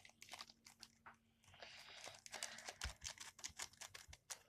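Faint crinkling and light tapping clicks as a packet and containers are handled, with a soft hiss of powder being poured about a second and a half in.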